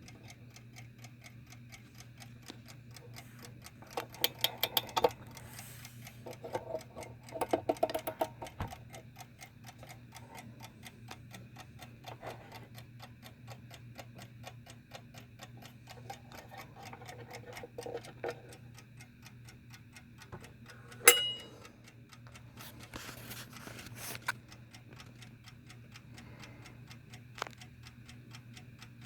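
Early Model 1 "peg leg" Westclox Big Ben wind-up alarm clock ticking steadily. A few louder clicks and clatters come near the start, and one sharp click with a brief ring comes about two-thirds of the way through.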